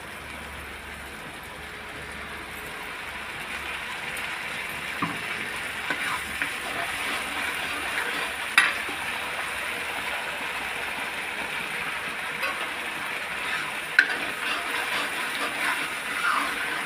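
Garlic, onion and green chilli paste sizzling steadily in hot oil in a kadhai while a steel ladle stirs it, clinking and scraping against the pan now and then. There are two sharper knocks of the ladle, one about halfway through and one a few seconds before the end.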